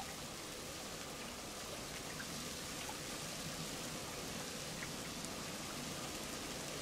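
Steady hiss of light rain falling, with a few faint ticks of drops.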